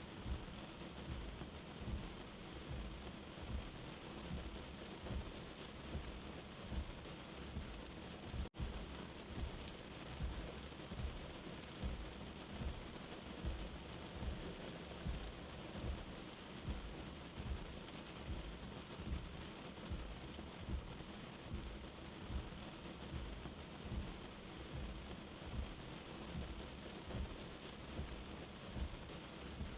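Steady rain with a low rumble underneath that swells about once a second. The sound cuts out for an instant about eight seconds in.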